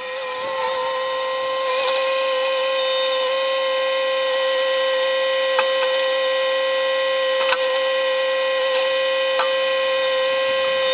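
Band sawmill blade cutting through a log: a steady high-pitched whine that holds one pitch throughout, with sharp ticks now and then.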